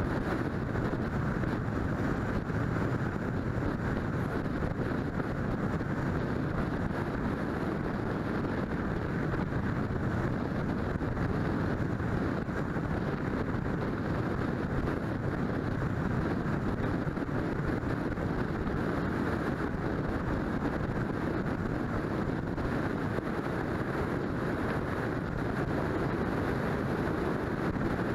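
Steady wind rush and tyre-on-asphalt road noise of a car cruising along a highway, picked up by a camera mounted outside on the hood.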